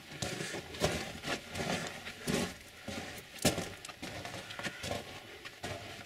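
Footsteps crunching on a loose rock and gravel tunnel floor, an uneven run of steps.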